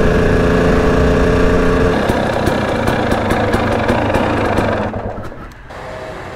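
Dirt bike engine running at steady revs on the road, heard from the handlebars. About two seconds in the engine note changes and a run of sharp clicks follows. Near the end the engine sound drops away to a quieter steady hum.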